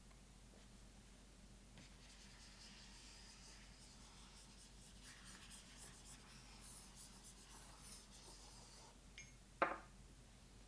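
Faint scratching of a stylus writing in short strokes on an e-ink tablet's screen, with one brief louder sound near the end.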